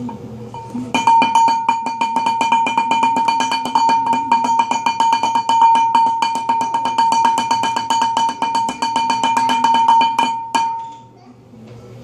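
Fast, even tapping on a household object that rings at one steady pitch with each strike, played as improvised percussion. It starts about a second in, runs as a dense rhythm, and stops abruptly near the end, leaving a short ring.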